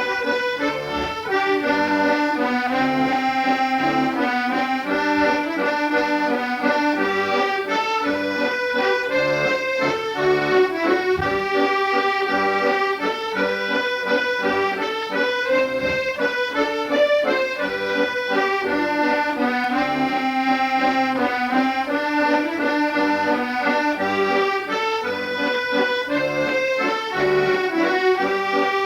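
Accordion playing a traditional-style tune, melody over sustained chords, at a steady level.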